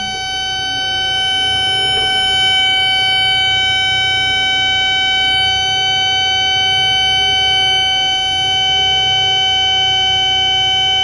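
Cat 316E excavator's quick-coupler warning alarm sounding as one steady, unbroken high tone inside the cab, signalling that the coupler is unlocked. The machine's diesel engine runs underneath it as the bucket is lowered.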